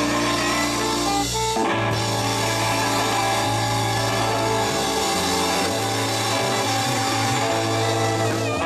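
Live band playing an instrumental break in a blues-rock song, with guitar, bass and drums and no singing.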